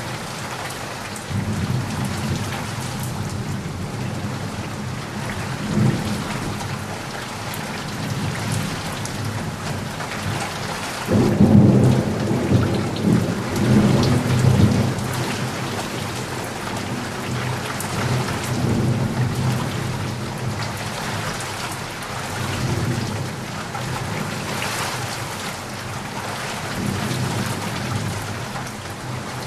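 Heavy rain falling steadily with rolls of thunder: a low rumble building about a second and a half in, a sudden loud crack and long rumble about eleven seconds in lasting some four seconds, and fainter rolls later.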